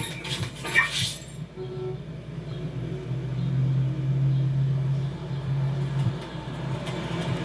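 City street traffic sound effects: a vehicle engine running and passing with a steady low hum that swells in the middle, after a few sharp clinks and hiss in the first second.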